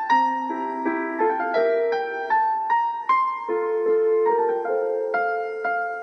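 Background music: a gentle solo piano melody, single notes struck one after another at about three a second, each ringing and fading.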